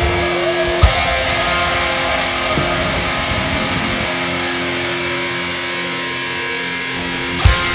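Heavy metal music with distorted electric guitar holding long sustained chords, broken by two sharp hits, one about a second in and one near the end.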